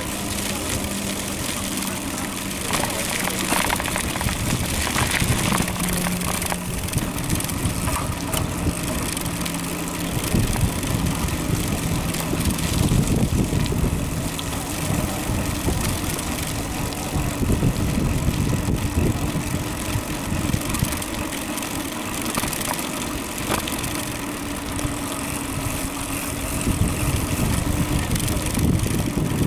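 Steady wind and road noise from riding a bicycle with the microphone exposed, with a low engine hum of nearby traffic under it.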